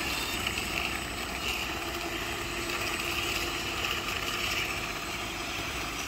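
Small motors and gearboxes of radio-controlled construction models running, a steady mechanical whine and drone.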